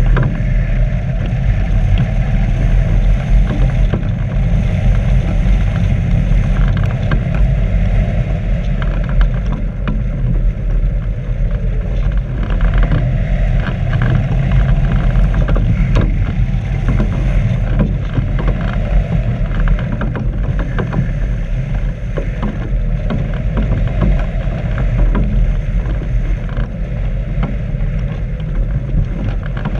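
Airflow rushing over a GoPro mounted on a hang glider's wing in free flight: a loud, steady, low rumble of wind noise with many small clicks and rattles through it.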